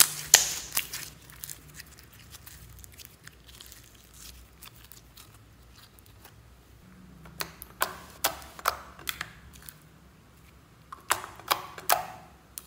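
Glitter slime being squished and poked by hand, giving sharp wet clicks and pops in irregular clusters: a burst at the start, a quieter stretch, then more in the second half and a last cluster near the end.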